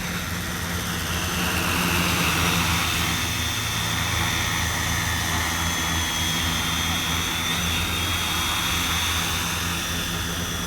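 A 5-litre multirotor crop-spraying drone flying on a test flight after repair: a steady buzzing hum of its rotors, the high whine dipping and rising slightly in pitch as it manoeuvres, loudest about two seconds in.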